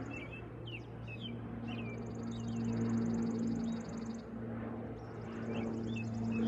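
Cessna 208B Caravan's turboprop passing overhead at altitude, a steady distant propeller drone. Birds chirp over it, with a rapid high trill that breaks off about four seconds in and soon resumes.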